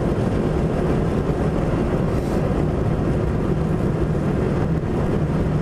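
Inside a car's cabin at highway speed: steady road and tyre noise over a low, even engine drone.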